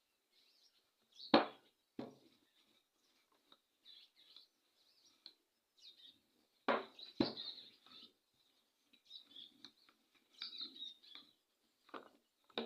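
A few sharp knocks and thuds on the kitchen work surface as biscuit dough is shaped for rolling, the loudest about a second in. Faint birds chirp in the background.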